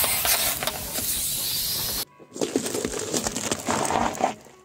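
Disposable butane lighters crushed under a car tyre, gas hissing out steadily for about two seconds and then cutting off abruptly. A car tyre then crushes green produce, with dense crackling and crunching that dies away near the end.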